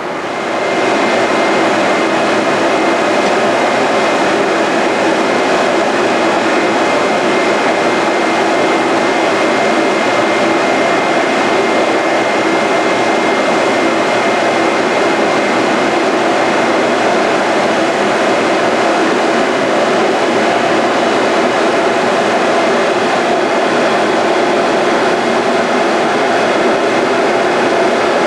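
DB electric locomotive running steadily at close range: a loud, even whir with a thin high whistle that fades out about halfway through.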